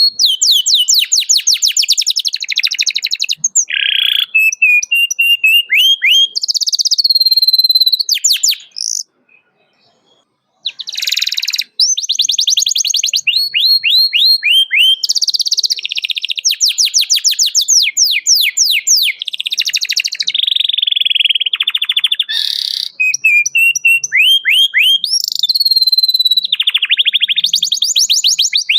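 Domestic canary singing loudly in fast trills and rolls of repeated falling notes, with a short pause about nine seconds in.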